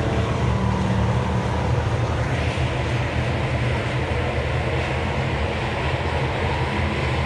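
Thunder Bomber race car engine running hard with a loud, steady drone.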